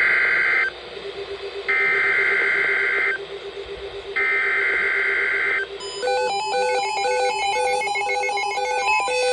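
Emergency Alert System SAME header: harsh digital data bursts, the end of one and then two more about a second apart, each about a second and a half long. About six seconds in, a rapid run of short electronic beeps hopping between several pitches follows.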